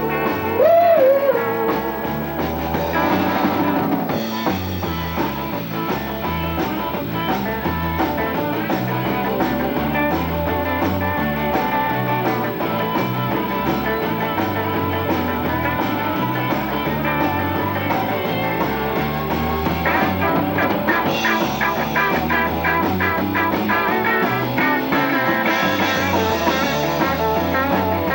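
Live rock band playing an instrumental section: electric guitar over a steady drum-kit beat.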